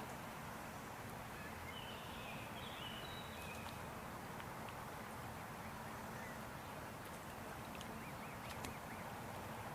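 A few short, faint bird calls over a steady outdoor background hum.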